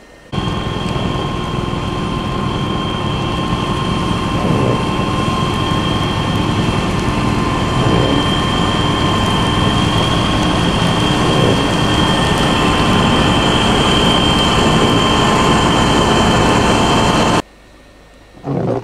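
Rotary snow blower truck running and throwing snow: a loud, steady machine drone with a steady high whine over it, cutting off suddenly near the end.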